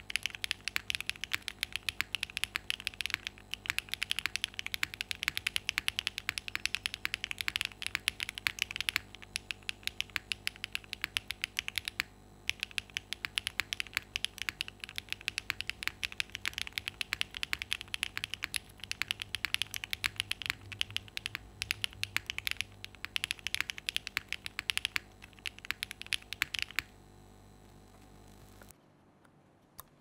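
Fast, continuous typing on a Dots87 mechanical keyboard with Y1 switches on a polycarbonate plate, under GMK Oblivion doubleshot ABS keycaps. The keystrokes stop about 27 seconds in.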